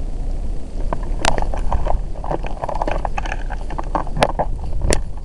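Footsteps crunching through dry leaves and twigs, with brush rustling close to the microphone, over a steady low rumble of wind and handling noise. A few sharp snaps stand out, about a second in and near the end.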